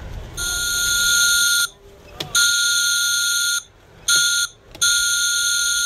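Pipe whistle blowing four blasts, long, long, short, long, each a steady high tone with a breathy hiss over it: the pattern of a railroad grade-crossing whistle signal.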